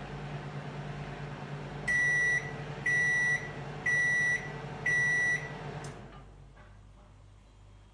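Samsung MG23F301TAK/EC grill microwave running with a steady hum, then four high beeps about a second apart signalling the end of the cycle; the hum dies away about a second after the last beep.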